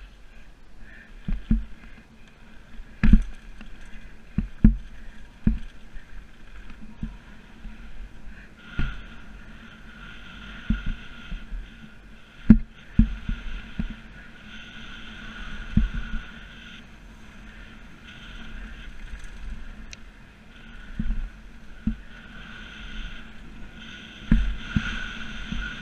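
Mountain bike descending a dirt freeride trail: a running rush of tyre and trail noise, broken by irregular heavy thuds and rattles every second or two as the bike hits bumps.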